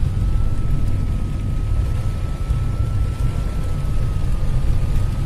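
Heavy rain beating on a car's roof and windshield, heard from inside the cabin, over a steady low rumble. A faint steady high-pitched whine runs throughout.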